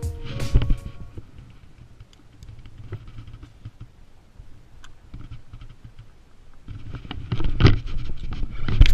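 Light clicks and taps of a spinning rod and reel being handled in a small boat, then louder knocks and thumps of movement in the boat from about two-thirds of the way in.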